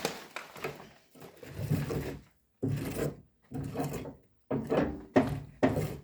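Pieces of wood being handled and set down: a string of irregular wooden knocks and scrapes, some short and some drawn out, as firewood is laid in a fireplace.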